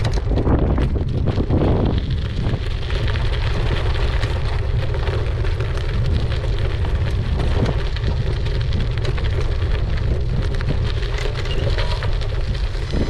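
Bicycle tyres rolling over a loose gravel track with a steady crackle, and wind buffeting the microphone with a low rumble.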